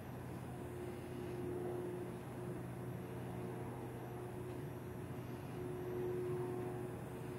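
Steady, faint mechanical hum with a held low tone, the sound of a distant engine.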